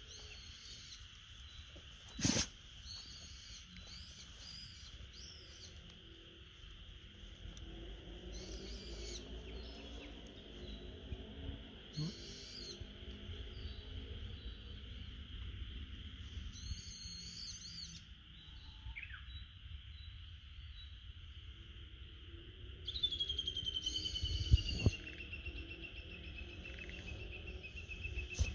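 Outdoor rural ambience: wild birds calling in short chirping bursts, with a lower repeated call through the middle, over a steady high drone of insects. A single sharp knock sounds about two seconds in.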